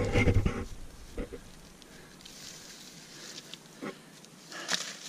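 Dry grass rustling and crackling underfoot, with a few sharp snaps about a second, four seconds and four and a half seconds in. A louder rumbling noise fills the first second.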